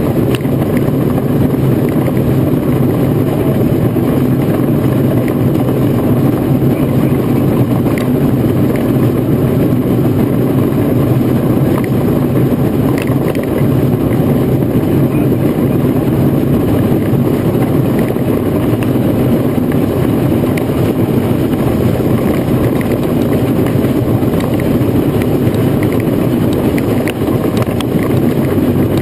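Marshall steam roller travelling along the road: a loud, steady running rumble with no letup.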